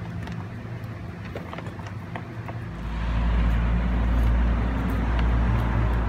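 Hand screwdriver driving a screw into a plastic steering-column shroud, with faint scattered clicks over a steady low hum. About three seconds in, a deep rumble comes in and stays, the loudest sound.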